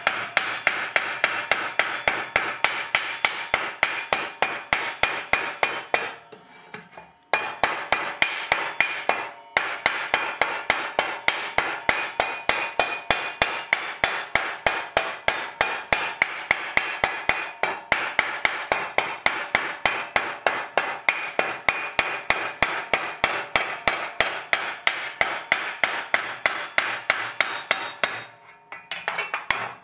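Hand hammer striking a 4130 spring-steel armour plate held on a steel stake, a steady run of about three ringing metallic blows a second. The blows pause briefly about six seconds in and again near the end.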